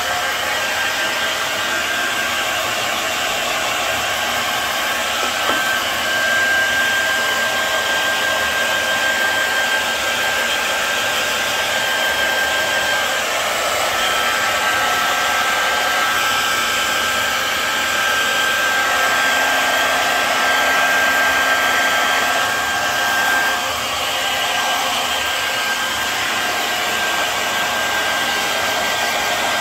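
Hair dryer blowing steadily, a constant rushing noise with a thin high whistling tone in it, drying a freshly bathed dog's coat.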